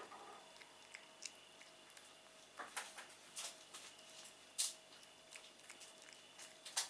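A cat chewing and smacking on pieces of raw meat: faint, irregular wet clicks, with a few louder ones a little past halfway and near the end.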